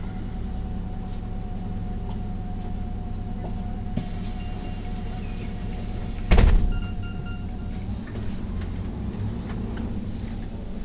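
Neoplan city bus's diesel engine running steadily, heard from inside the bus. About six seconds in comes a short, loud hiss of compressed air from the bus's pneumatic system, fading within half a second, with faint high beeps around it.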